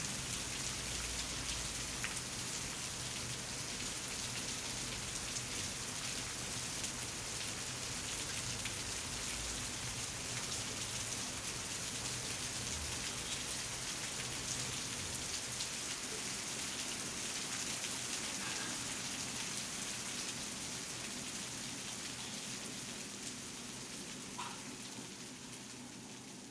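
Steady rain-like hiss sprinkled with faint patters, over a low steady hum, fading out near the end.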